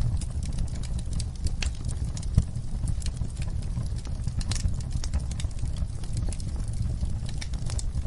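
Wood fire burning in a fireplace: irregular sharp crackles and pops over a steady low rumble of the flames, with one stronger pop about two seconds in.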